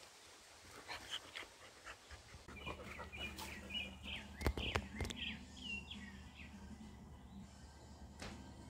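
A quick run of short, high-pitched animal calls over about three seconds, faint, with a few sharp clicks among them.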